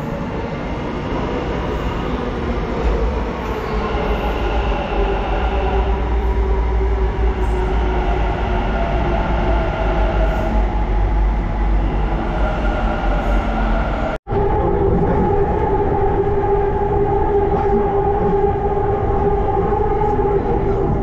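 Bangalore Namma Metro train running: a steady rumble with an electric motor whine that slowly falls in pitch. About two-thirds through the sound breaks off for a split second, then a steadier whine goes on.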